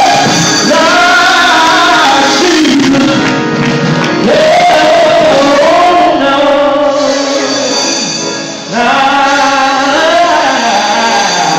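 Gospel singing: a man's voice holding long notes that slide up and down over musical accompaniment, in a large hall. The singing breaks off briefly about eight and a half seconds in, then goes on.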